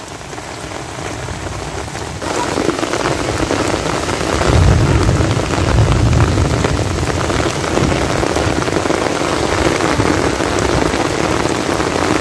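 Heavy rain falling steadily, growing louder about two seconds in, with a low rumble around the middle.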